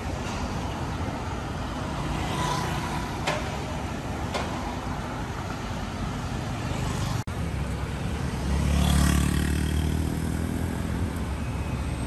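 Road traffic: cars and motorbikes passing steadily on a city street. About eight seconds in, a heavier engine swells as it passes close, loudest around nine seconds, then fades. The sound briefly cuts out about seven seconds in.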